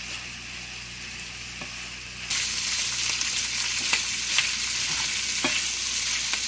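Shrimp frying in butter in a pan, a steady sizzle that gets louder about two seconds in, with a few light clicks.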